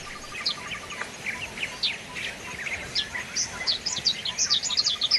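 Forest birds chirping: many short, high notes that sweep downward, coming thicker toward the end. A faint rapid trill runs underneath near the start and again near the end.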